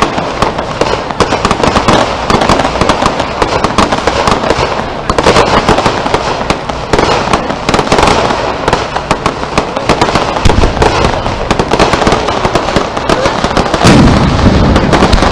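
Fireworks going off: a dense, rapid crackling and popping throughout, with deep booms about ten and fourteen seconds in, the second as an aerial shell bursts overhead.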